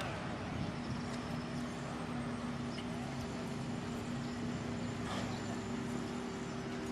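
Steady machinery or engine hum with a constant low drone over a continuous background noise.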